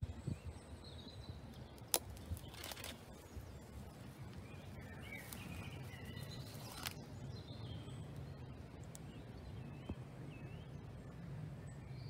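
Quiet outdoor ambience with scattered small bird chirps, a sharp click about two seconds in, and short bursts of rustling as leafy shrub branches are handled.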